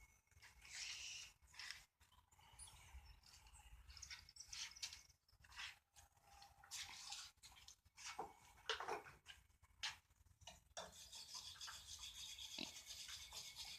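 Faint scratching of a wire brush scrubbing a steel piece: uneven strokes at first, becoming steadier and more continuous near the end.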